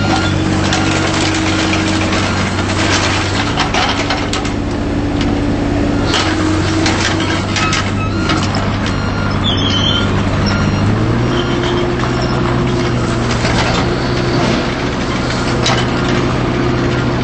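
2007 John Deere 17D mini excavator's diesel engine running steadily, its pitch dropping slightly a few seconds in and stepping up again about two-thirds through, with a few short knocks.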